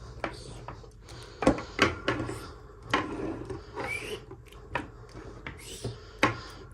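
Hands unboxing toy packaging: a series of sharp taps and clicks, loudest about a second and a half and two seconds in, with scratchy rustling and rubbing between them.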